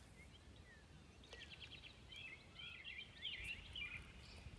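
Faint songbird chirps: a quick run of high notes a little over a second in, then scattered short sweeping calls.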